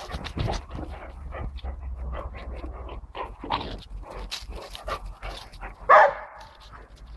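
Dogs playing along a wire fence, panting and whining, with one loud bark about six seconds in.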